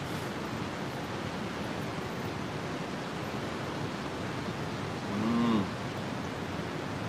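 Steady outdoor rushing noise, with a single short hummed 'mm' from a man tasting food about five seconds in, rising and falling in pitch.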